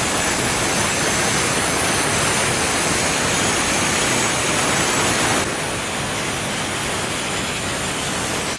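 Ryobi 4-inch angle grinder with a diamond blade scoring a concrete patio stone: a loud, steady grinding hiss over the motor's high whine, a little quieter from about five seconds in.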